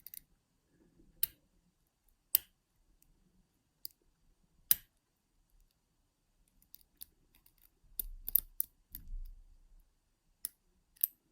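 Lock pick and tension tool working the pins of an ERA 6-pin euro cylinder lock with home-made spool pins: sharp metallic clicks about a second apart, then a flurry of clicks about eight seconds in, where the set pins drop.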